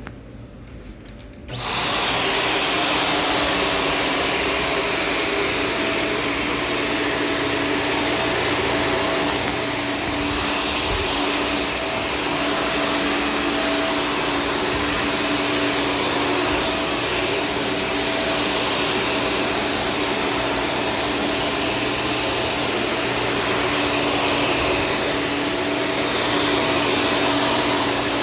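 Shark Stratos vacuum cleaner switched on about a second and a half in, then running steadily with a constant hum and whine.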